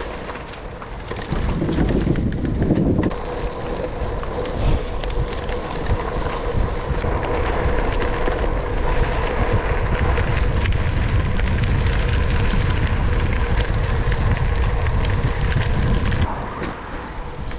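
Gravel bike riding over a loose gravel path: wind buffeting the microphone, with tyres crunching and small rattles and clicks from the stones. The wind rumble drops away near the end.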